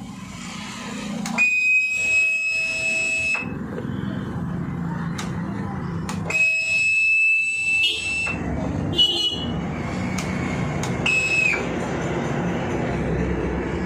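Bajaj Pulsar 150 BS6's electric fuel pump priming at key-on, a steady high-pitched whine heard three times. The first two whines last about two seconds each; the last is brief and drops in pitch as the pump stops. Each run pumps petrol out through the disconnected fuel line, with a few clicks in between.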